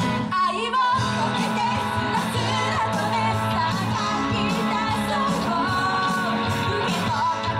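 Live pop-rock band playing: electric guitars, drums and keyboard with a singer carrying the melody over a steady drum beat.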